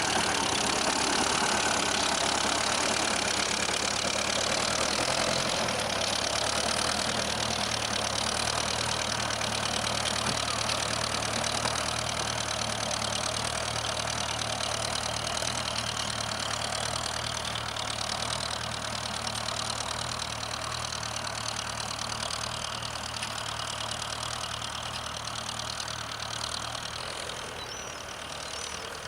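Ferguson TEF tractor's four-cylinder diesel engine running steadily with a knocking diesel note, gradually growing fainter.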